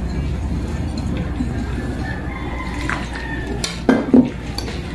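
Wire whisk stirring rice flour and coconut cream in a glass bowl, with two sharp clinks of the whisk against the glass near the end, over a steady low hum.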